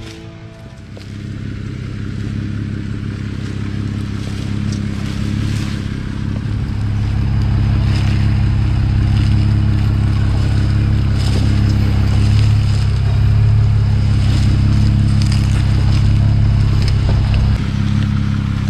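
Jeep Wrangler JL Sport running at low revs as it crawls over a deep rut, its tires crunching and scraping on rocks and gravel. The engine grows louder over the first several seconds.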